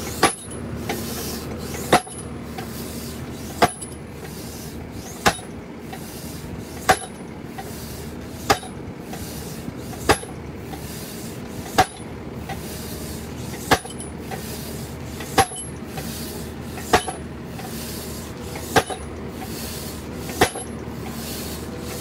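Tractor-mounted Protech post driver dropping its 300-plus-kilo weight onto the top of a chestnut fence post, driving it into the ground. There are thirteen sharp thuds, about one every 1.7 seconds, over the steady running of the tractor.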